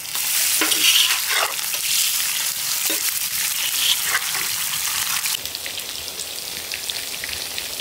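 Mackerel slices shallow-frying in sesame oil on a large flat griddle: steady loud sizzling with scattered pops and clicks, dropping to a quieter sizzle about five and a half seconds in.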